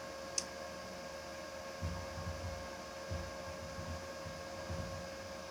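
Steady electrical hum from the recording setup, with a single sharp mouse click about half a second in, then irregular soft low thuds.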